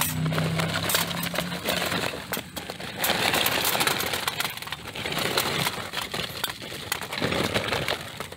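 Charcoal briquettes poured from a paper bag into a square stainless-steel chimney starter, clattering against the metal box and against each other in a dense, uneven rattle, with two heavier pours, one around three seconds in and one near the end.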